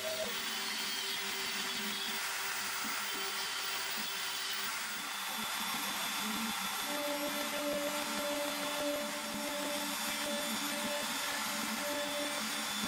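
Hobby CNC router's spindle running at high speed as its bits cut end-grain hardwood: a 3.175 mm end mill milling a pass, then a 6 mm 30° V-bit carving. A steady machine whine whose tone changes about five to seven seconds in.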